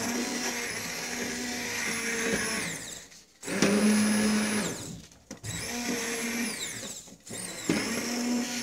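Hand-held immersion blender puréeing cooked vegetables in a pot of soup. It runs in about four bursts with short pauses between them. Its whine rises as each burst starts and falls as it stops.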